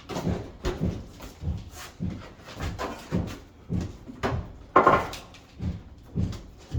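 A stuck built-in dishwasher being rocked and pried out of its cabinet opening: a regular run of knocks and thumps, about two a second, with a heavier knock about five seconds in.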